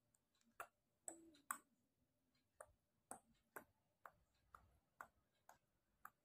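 Small kitten licking and nibbling a person's fingers: soft, quiet mouth clicks, about two a second.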